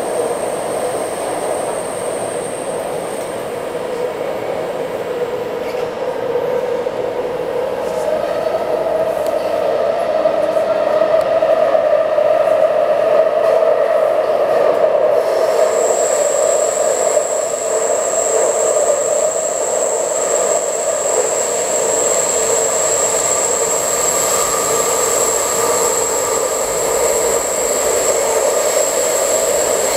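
Taipei Metro C381 train, with its traction software modified, running between underground stations, heard from inside the car: a steady rumble and rush of wheels on rail. A high steady whine drops out after a few seconds and comes back about halfway through.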